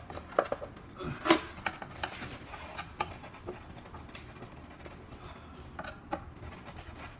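Scattered small clicks and knocks of a screwdriver tightening a screw into a ceiling fan's blade holder while the blade and bracket are handled, the sharpest knock about a second in.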